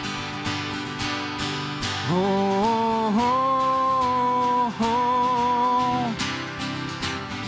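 Two acoustic guitars strumming a steady rhythm. From about two seconds in, a man sings a long wordless note over them; it breaks briefly near the middle and ends about six seconds in.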